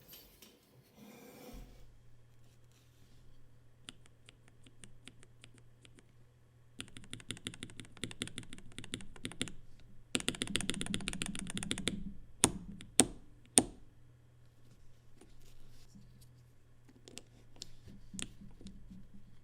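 Typing on a KBD67 Lite mechanical keyboard with stock, unlubricated Red Jacket linear switches: scattered key clacks, then fast runs of keystrokes for several seconds, ending with three louder single strikes.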